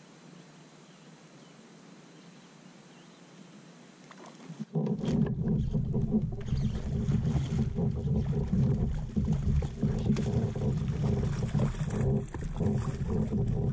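Faint hiss, then about five seconds in a sudden loud, rough rumbling on the microphone: the handling and movement noise of an angler fighting a hooked fish from a kayak.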